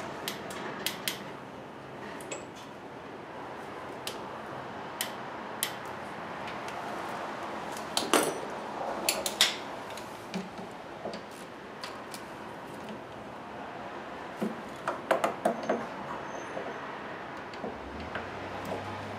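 Hand tools on the alternator mounting bolts: scattered metallic clinks and taps of a wrench or socket on steel as the bolts are tightened, with a quick run of clinks about halfway through and another a few seconds later.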